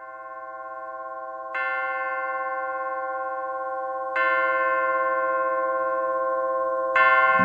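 Instrumental song intro of bell-like chimes: ringing tones swell in, then a new chord is struck three times, about every two and a half seconds, each one ringing on under the next.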